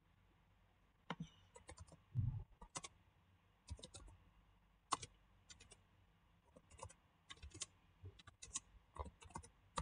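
Computer keyboard typing: irregular runs of short key clicks starting about a second in, with a soft low thump about two seconds in.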